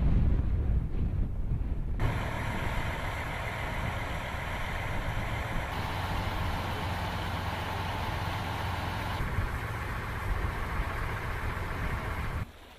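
Low wind rumble on the microphone for about two seconds, then an engine running steadily, its sound changing abruptly twice where the footage is cut.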